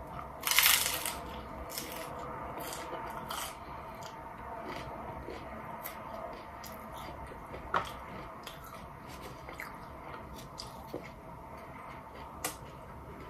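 Biting into a crunchy hard-shell taco: a loud crunch about half a second in, then chewing with scattered crisp crackles and mouth clicks, and two sharper crunches later on.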